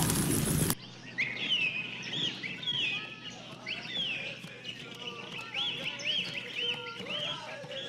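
A loud, noisy sound cuts off abruptly under a second in, leaving a quieter background of birds chirping: short arched calls repeated about twice a second.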